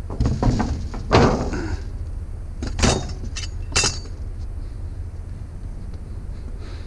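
Salvaged curbside items being handled and set down: a few knocks and clattering thumps, the loudest about a second in and the last near four seconds, over a steady low rumble.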